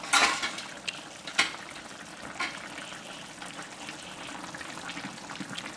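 Pot of chicken curry simmering with a steady bubbling hiss. A few sharp knocks cut through it, the loudest right at the start.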